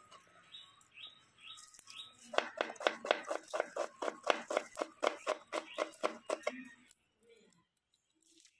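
Kitchen knife chopping red onion on a wooden cutting board: a quick, even run of sharp knocks, about five a second, that starts about two seconds in and stops about two seconds before the end.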